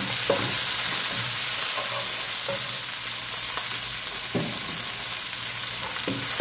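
Garlic, shallots and chilies sizzling in hot oil in a nonstick wok as a wooden spatula stirs them. The spatula scrapes and taps the pan a few times.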